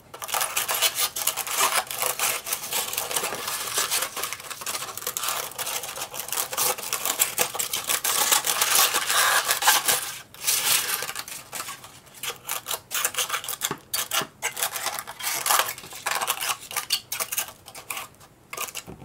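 Scissors snipping through crumpled aluminum kitchen foil, the foil crinkling and crackling as it is cut and turned in the hands, with short pauses between runs of cutting.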